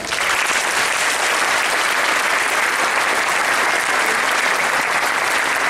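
Audience applauding, breaking out suddenly just as a children's choir finishes singing and then going on steadily.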